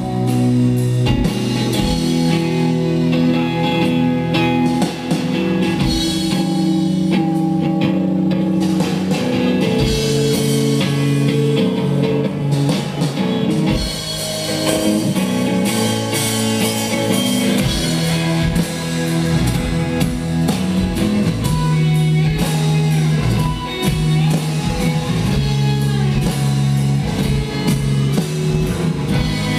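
Live rock band playing an instrumental passage: electric guitars and bass over a steady drum-kit beat, with no singing.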